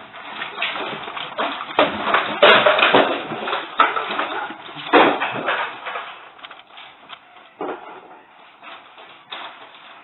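Objects in a room rattling and clattering during strong earthquake shaking, with a low rumble beneath. The clatter starts suddenly, is loudest a few seconds in, then dies away to lighter rattling.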